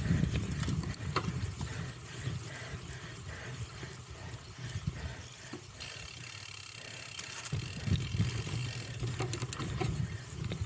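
Cyclocross bike being raced over rough ground: mechanical rattle and clicking from the bike, with a freewheel ratcheting, over a steady low rumble that swells near the start and again about eight seconds in.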